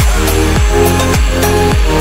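Electronic dance music with a steady, deep kick drum, a little under two beats a second, under sustained synth notes and hi-hat ticks.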